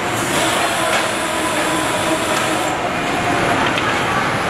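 Assembly-plant machinery running on the factory floor: a loud, steady mechanical din with clatter.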